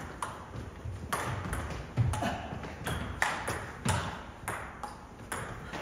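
Table tennis rally: the celluloid-plastic ball clicking sharply off rubber-faced bats and the table, a hit every half second to a second in an uneven rhythm.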